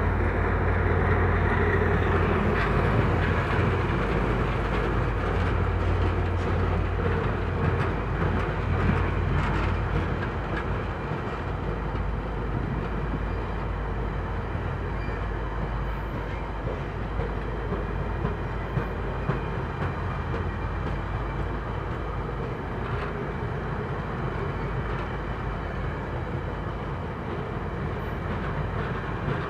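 Stainless-steel passenger cars of a long passenger train rolling past as it pulls out of a station, a steady rumble of wheels on rail with occasional light clicks. A low hum fades out after about ten seconds.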